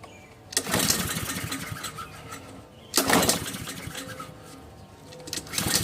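Gas lawn mower being pull-started three times, the engine turning over with each yank of the recoil cord and dying away without catching: it won't start.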